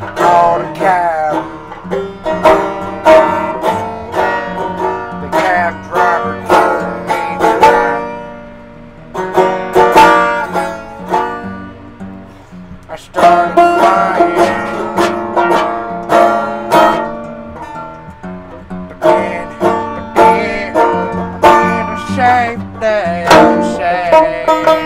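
Instrumental break of a country-style song: a plucked-string lead picks quick runs of notes, with a few bent notes, over a low bass line, easing off briefly twice midway.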